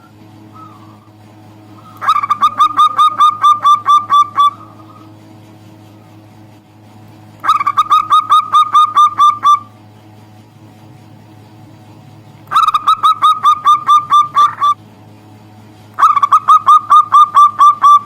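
Zebra dove (perkutut) calling in four bouts, each a quick run of about ten to twelve repeated cooing notes lasting roughly two seconds, with short pauses between bouts. A faint steady hum lies underneath.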